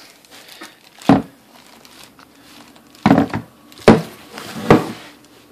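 Plastic packaging crinkling as a FiTech Go Street cast-aluminium EFI throttle body is handled, with about four short thumps as the heavy unit is moved and set down.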